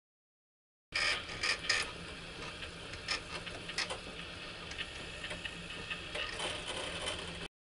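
Baxter robot arms working a knife through a vegetable on a plate: a steady low whir of the arm's joint motors and gears, with scattered sharp clicks and scrapes of the blade and grippers, the loudest cluster of clicks about a second in. The sound starts and stops abruptly.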